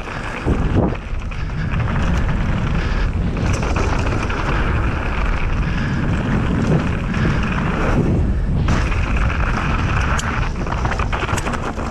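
Mountain bike descending a dirt trail at speed: wind rushing over the action camera's microphone and tyres rumbling on the ground, with short rattles and knocks from the bike over bumps, most of them near the end.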